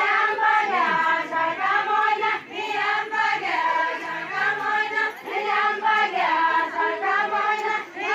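A group of women singing a Deuda folk song together, many high voices in unison carrying a wavering melody, with no instruments clearly standing out.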